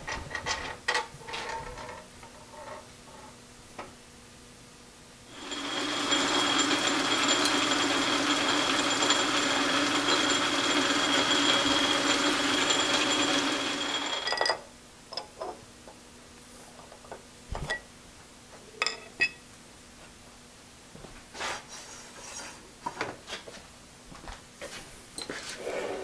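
A machine runs steadily for about nine seconds, starting about five seconds in and stopping abruptly. Before and after it come scattered clicks and knocks of metal parts being handled.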